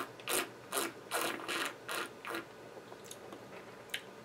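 A person drawing air through a mouthful of wine to aerate it while tasting: a quick run of about seven short hissing slurps, two or three a second, that stops about two and a half seconds in.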